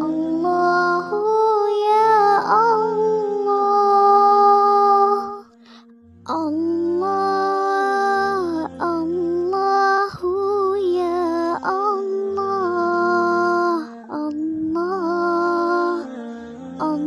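A melodic dhikr chant: a voice sings long held, wavering notes over a low, pulsing accompaniment, breaking off briefly a little past five seconds in before the melody resumes.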